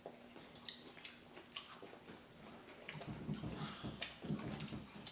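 Faint clicks and taps of chopsticks and utensils against dishes during a meal, with soft eating noises in the second half.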